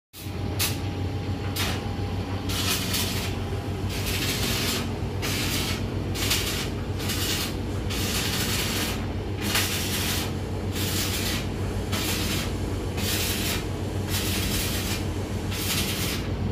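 Mitsubishi S6M3 inline six-cylinder turbo diesel marine engine running steadily with a low hum, overlaid by a hiss that pulses unevenly about once or twice a second.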